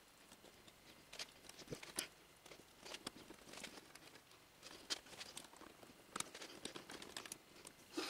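Faint, scattered clicks and rustles of electrical wires being handled, bundled and tucked into place by hand on a laser cutter's control panel.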